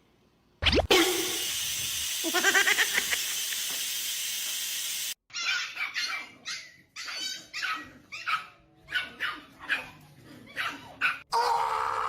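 A dog barking and yelping in a series of short, separate calls, over a steady hiss in the first few seconds.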